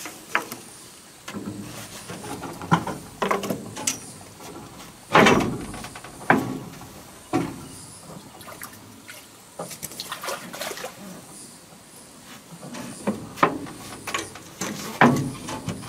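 Scattered knocks and thumps of fishing gear being handled on a metal boat, irregular and spaced a second or more apart, the loudest about five seconds in.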